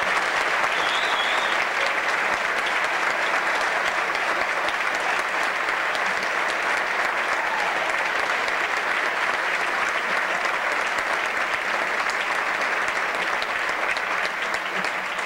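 Audience applauding steadily: dense, continuous clapping that eases off slightly near the end.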